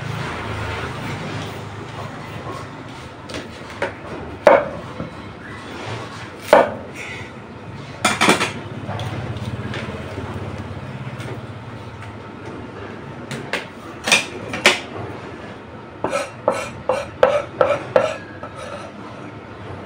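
Kitchen food-prep clatter: utensils knocking against a stainless steel bowl and a wooden chopping block, a few single knocks spread out, then a quick run of about eight knocks near the end.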